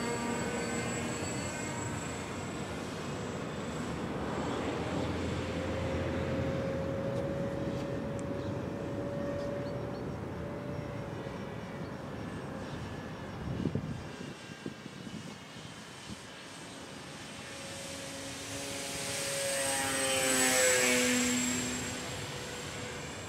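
Radio-controlled scale model of a Canadair CL-84 tiltwing flying, its propellers giving a steady whine. About 19 to 21 seconds in it passes close and gets louder, then the pitch slides down as it goes by. A few short crackles come about halfway through.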